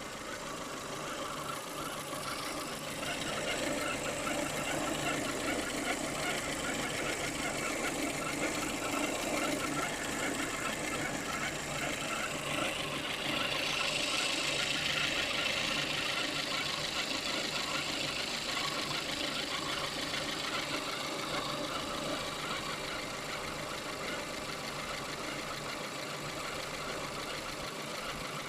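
VAZ 2115 (Lada Samara) running, with a fast, regular squeak over the engine noise. The squeak is of unknown origin.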